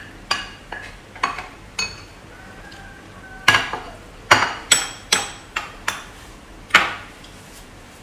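Cutlery tapping and scraping against dishes while eating: a dozen or so irregular sharp clinks with a short ring, loudest in a quick run a little past the middle and once more near the end.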